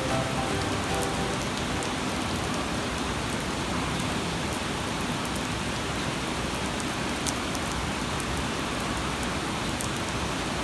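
Steady rain falling: an even hiss with scattered small drop ticks. The tail of soft background music fades out in the first second.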